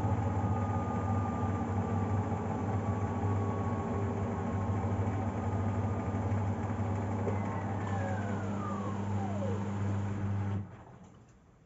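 Arctic front-loading washing machine on the final spin of its 60° cottons programme: the motor and drum run at spin speed with a steady hum and whine. From about halfway through, a whine falls in pitch as the drum slows. The motor cuts off suddenly about ten and a half seconds in, leaving the drum coasting almost silently.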